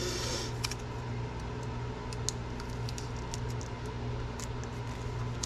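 Small ticks and a short rustle of hands handling masking tape and a small circuit board with its SMA connector, over a steady low hum.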